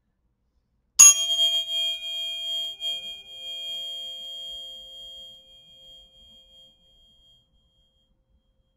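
A pair of tuning forks struck once about a second in, with a sharp metallic clink, then ringing with several clear tones at once that fade away over about six seconds.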